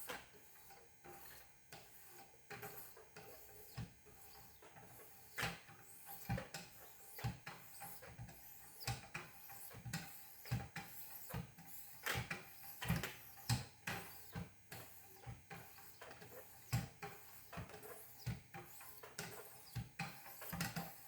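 Wicked Edge guided-rod sharpening stones being stroked along alternate sides of a thin kitchen knife blade: faint light scraping with irregular clicks and taps, one or two a second, as the stones meet the steel.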